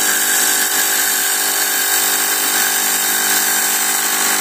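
Stage fog machine running, its electromagnetic fluid pump buzzing steadily under a hiss of fog. It is making smoke but still spitting out unvaporised fog fluid along with it.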